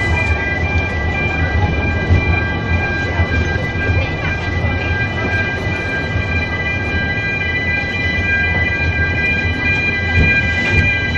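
Welsh Highland Railway narrow-gauge train running slowly, its wheel flanges squealing against the rails in a steady high-pitched multi-tone whine over the low rumble of the train.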